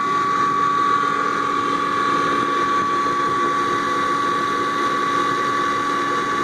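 Industrial rotary screw air compressor running steadily, with a constant high whine over a lower hum.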